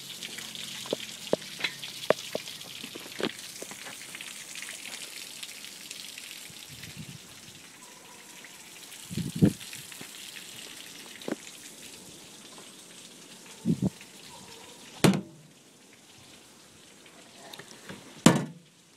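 Water from a garden hose splashing and hissing around an outboard motor's lower unit, with no engine running. The hiss fades after several seconds, and sharp knocks and thumps follow, the loudest about halfway and near the end.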